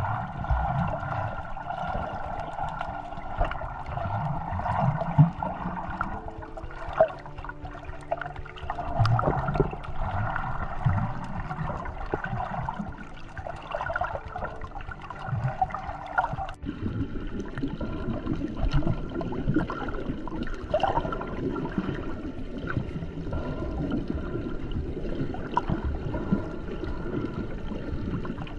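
Water heard through a camera held underwater: a steady muffled gurgling and swishing with small knocks now and then. The sound changes suddenly about two-thirds of the way through.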